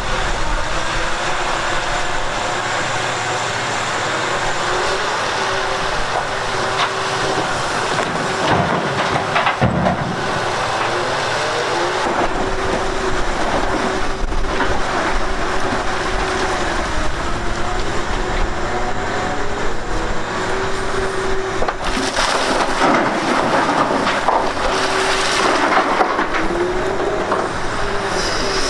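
A large machine running under load: a steady mechanical whine that dips and rises in pitch now and then, over grinding noise with scattered knocks.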